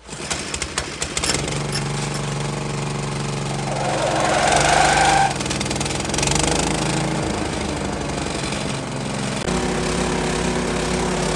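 A 7.5 hp petrol engine driving a grass chopper starts up abruptly, clattering for about a second, then settles into a steady run with the chopper spinning empty, before any grass is fed. Its pitch shifts slightly a couple of times, with a louder stretch about four to five seconds in.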